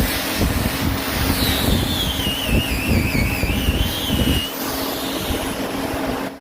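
A motor running with a rough rumble and a steady hum, and a high whine that dips in pitch and climbs back up between about one and four and a half seconds in; it cuts off suddenly near the end.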